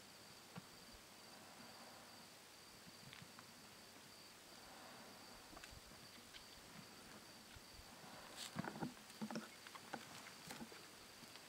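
Faint outdoor ambience: a thin, steady high insect trill over a soft hiss, with a cluster of soft clicks and knocks about eight to ten seconds in.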